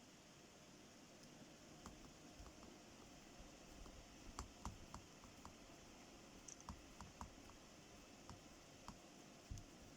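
Faint, irregular small clicks and taps of hard plastic headphone parts being handled, a few louder clicks midway and near the end.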